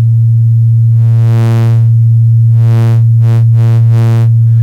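Eurorack synthesizer oscillator droning on one steady low pitch. Its tone brightens and dulls as its wave shape is swept by a control-voltage offset, with a few quick bright pulses in the second half.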